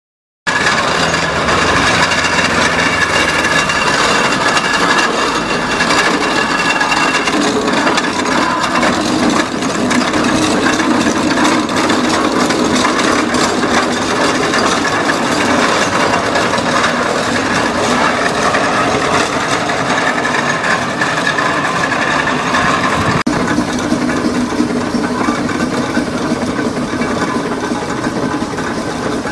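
John Fowler steam traction engine driving along, a loud, continuous rattling clatter of its motion and gearing. The sound changes slightly at a cut about 23 seconds in.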